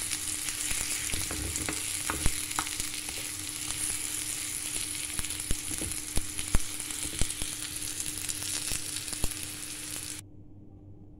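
Shredded cabbage, red onion and egg sizzling in a frying pan as a wooden spatula stirs them, with scattered clicks of the spatula against the pan. The sizzling cuts off suddenly near the end.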